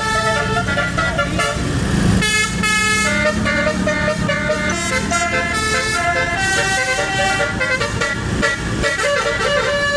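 Indonesian bus telolet (basuri) horn playing a tune: a multi-note horn stepping quickly from note to note, several notes sounding at once, over a low steady hum.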